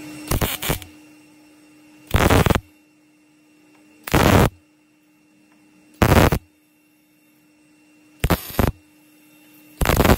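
MIG welder stitch-welding thin rusted sheet metal on a wheel arch: six short bursts of arc noise, each about half a second, roughly every two seconds. A steady hum runs between the welds. The sound is sped up.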